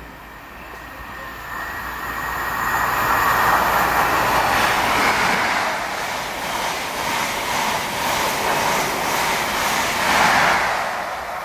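LNER express passenger train passing at speed: a rush of wheels on rails that builds over the first few seconds, then a rhythmic clatter of wheels in the second half, loudest near the end.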